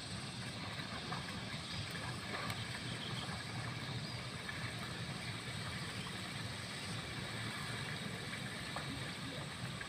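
Steady outdoor background noise: an even rushing sound with a low hum underneath and no distinct events.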